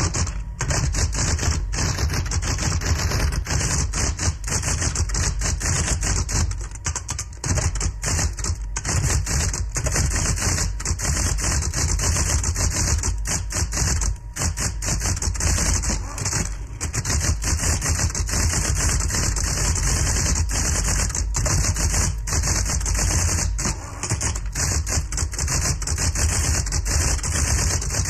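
Electric typewriter typing: a rapid, continuous run of key strikes with a steady low hum underneath.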